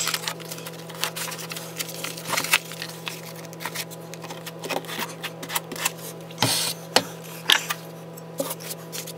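Irregular clicks and scrapes of a steel trowel and hands working thinset mortar and pressing waterproofing membrane into a shower corner, over a steady low hum.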